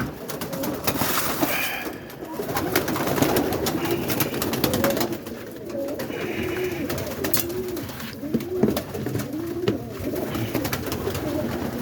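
Roller pigeons cooing over and over, each coo an arching low call, with many sharp taps and clicks among them.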